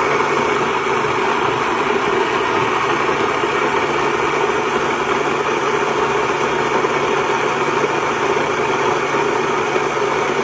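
NutriMill Harvest electric stone grain mill running: a loud, even machine whir over a low steady hum.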